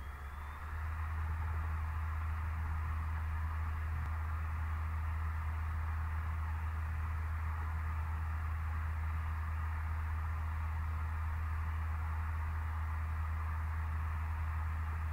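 A steady low hum with a hiss over it, growing louder about a second in and then holding level.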